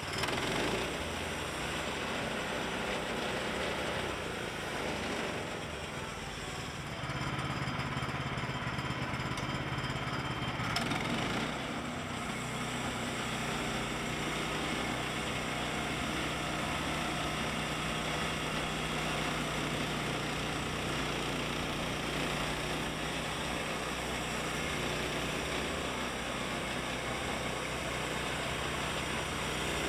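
Woodland Mills HM122 portable bandsaw sawmill cutting a log: its small gasoline engine runs steadily under load while the band blade saws through the wood.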